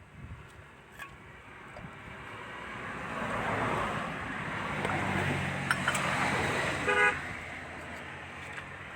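A motor vehicle passing on the road, its noise swelling and then fading over several seconds, with a short horn toot about seven seconds in.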